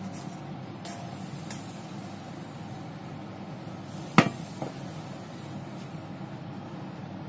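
A wok set down on a glass hob: one sharp knock about four seconds in and a smaller knock just after, over a steady background hum. A couple of faint clicks near the start as the last pieces are tipped from the wok onto the plate.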